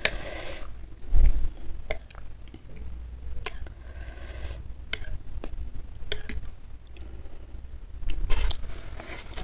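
Metal spoon and fork stirring a bowl of bakso meatball soup with rice vermicelli: broth sloshing and squishing, with scattered clinks and scrapes of the cutlery against the bowl.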